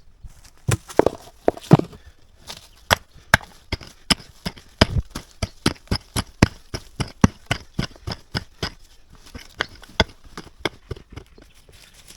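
A quick series of sharp knocks and crunches: an irregular cluster at first, then a steady beat of about two to three strokes a second, easing off near the end.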